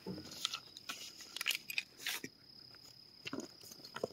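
Cardboard boxes and packing being handled: scattered rustles and light knocks. Under them runs a steady high-pitched insect trill.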